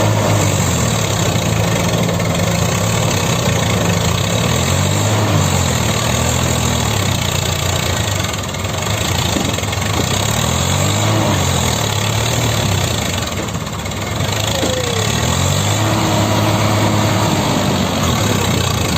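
Heavy diesel engine of a tractor or backhoe loader running and revving up and down in repeated surges, its pitch rising and falling every few seconds.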